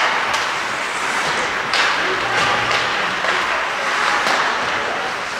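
Ice hockey game noise in a rink: a steady wash of noise from skates and spectators, cut by three sharp clacks of sticks and puck.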